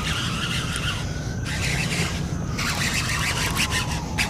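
Fishing reel drag whining as a hooked bass pulls line out: a thin squeal that slowly wavers up and down in pitch, with scattered clicks over a steady low rumble.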